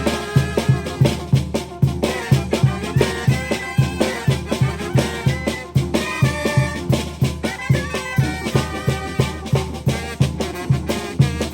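Oaxacan brass band (banda de viento) playing: a brass melody over a steady bass drum beat.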